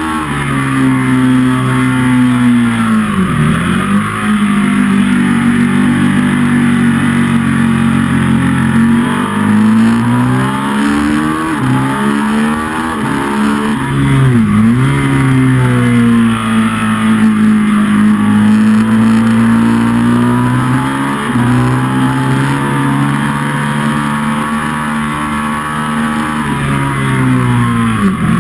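Ducati 1199 Panigale's Superquadro V-twin at racing speed on track, heard from on the bike with wind rushing. The revs fall sharply and climb again three times, about three seconds in, midway, and at the very end, as the bike brakes for corners and accelerates out.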